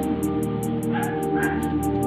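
Background music: held chords over a quick, steady ticking beat.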